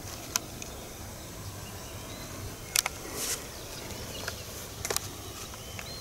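Quiet countryside ambience with faint bird chirps, broken by a few sharp clicks, the loudest less than half a second in and just before the three-second mark.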